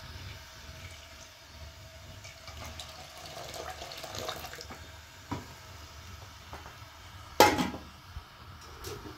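Water sounds, with scattered small clicks and one short, loud burst about seven and a half seconds in.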